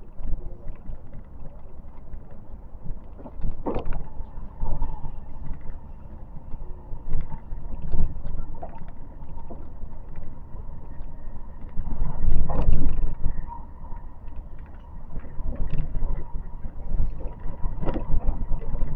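Riding noise inside a moving train: a steady low rumble of wheels on rails, with scattered sharp clacks as the wheels cross rail joints and points. It grows louder for a second or two about twelve seconds in.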